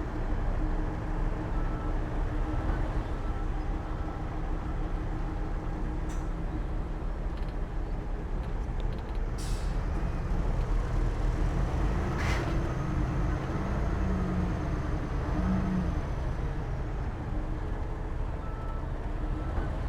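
Heavy diesel earthmoving machinery, a bulldozer and dump trucks, running steadily under load. Two short air hisses about halfway through, typical of a truck's air brakes.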